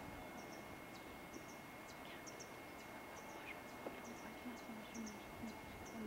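Faint forest ambience: a short, high double chirp repeats about once a second, with a couple of faint falling whistles in the middle. Underneath are a steady thin high tone and a hiss.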